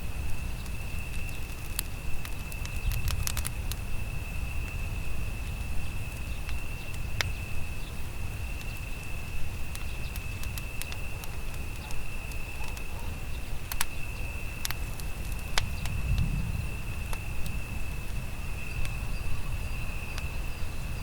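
Wood campfire burning, with sharp crackles and pops scattered irregularly over a low rumble.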